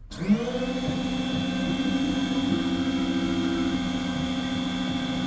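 Key-cutting machine's cutter motor starting suddenly, rising to speed within a fraction of a second and then running at a steady whine as the machine begins cutting a key blade to code.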